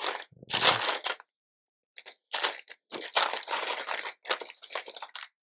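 Plastic LEGO bricks rattling and clicking as hands handle and sort them, in irregular rustles and clicks with a short pause about a second in.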